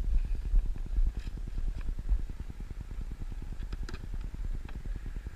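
A steady low, rapidly pulsing hum of a running machine, with a few light clicks and rustles as wires are handled.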